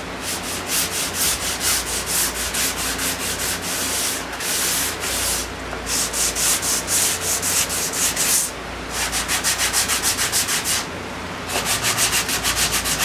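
Hand sanding a wooden raised-panel door with 150-grit sandpaper on a sanding block, rubbed back and forth along the panel's groove. About four quick rasping strokes a second, in four runs with short pauses between.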